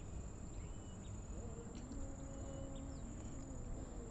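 Open-air ambience: a few short, flat, high chirps a second or two apart, typical of a small bird calling, over a steady low rumble and a thin constant high whine.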